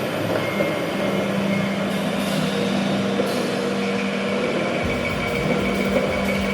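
Improvised sound-art performance on turntables and drums: a dense, noisy drone with a steady low hum and a thin high tone, joined by a deep rumble about five seconds in.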